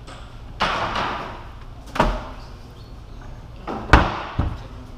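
Wooden tobacco storage crates being handled: a scrape of wood about half a second in, then sharp wood-on-wood knocks about two seconds in and twice near the end, the loudest about four seconds in.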